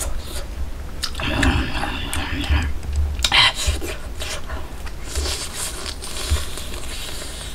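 A man chewing and biting into roasted wild boar meat: wet mouth sounds of eating and chewing, mixed with short clicks.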